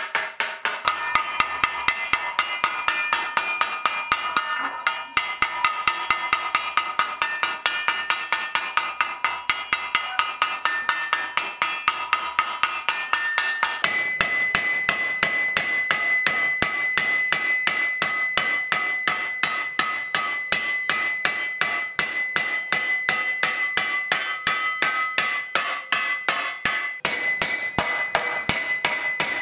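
Hammer blows on a 4130 spring-steel armour plate over a steel stake anvil, a steady rapid run of about three ringing strikes a second. About halfway through, the ring becomes a clear, high, sustained note that carries between the blows.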